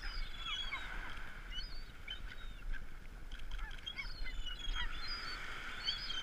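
A flock of gulls calling over one another in many short, overlapping cries, with a steady low rumble underneath.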